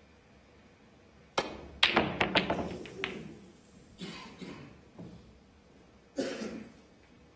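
Snooker balls and cue: a sharp click of the cue tip on the cue ball, then a quick run of hard clicks and knocks as the balls collide and rebound off the cushions, dying away, with a few more single knocks later. It is a hard-hit, powerful shot.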